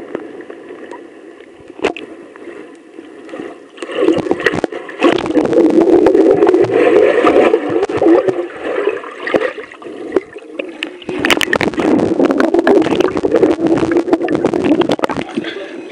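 Muffled rushing and gurgling of pool water picked up by a camera held underwater, with bubbles and water churned by swimmers close to it, and scattered clicks and knocks. It is quieter for the first few seconds, then grows loud from about four seconds in.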